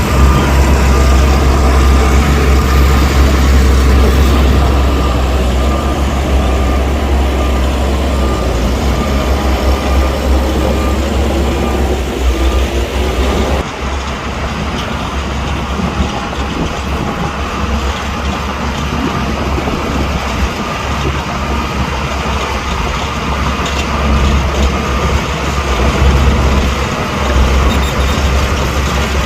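Heavy diesel earthmoving machinery working: a bulldozer and dump trucks running with a steady deep engine rumble and a thin whine on top. The sound changes abruptly about halfway through.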